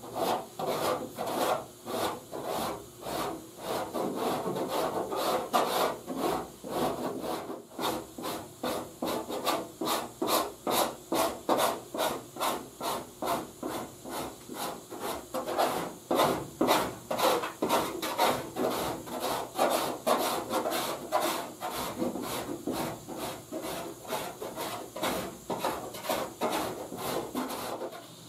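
Stanley Surform rasp shaving fresh, still-soft lightweight body filler on a truck fender, in repeated rasping strokes, about two to three a second. It is knocking the filler down close to shape before it hardens and is sanded.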